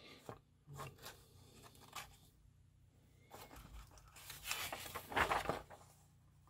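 Pages of a paper instruction booklet being handled and turned: a few short rustles, then a longer, louder rustle of paper as the pages are flipped over about two-thirds of the way through.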